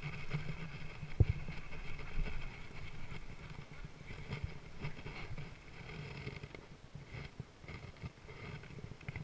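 Scattered light clicks and knocks from handling a baitcasting rod and reel, over a faint low rumble.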